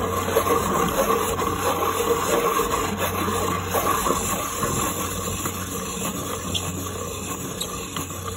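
Pencil sharpener grinding a Faber-Castell Polychromos warm grey coloured pencil, a steady grinding that eases off slightly toward the end.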